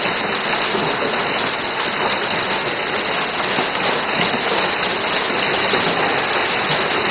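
Heavy downpour of a hailstorm: rain and hail coming down in a steady, dense hiss.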